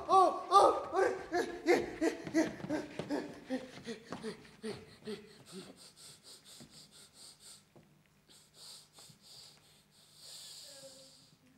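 A person's long, slow laugh, a run of pitched 'ha' syllables about two to three a second that grows steadily fainter and dies away about halfway through, followed by a few wheezy, breathy gasps near the end.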